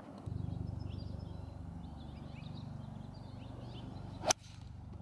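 A golf club strikes a ball off the grass with one sharp crack about four seconds in, the loudest sound. Before it, birds chirp faintly over a low steady hum.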